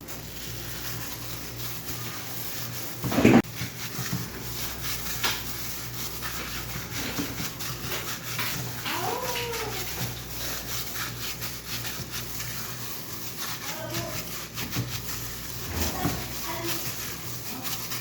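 Hands mixing minced chicken with spices in a bowl, a steady run of small rubbing clicks. A single loud knock comes about three seconds in, and a short call that rises and falls comes near the middle.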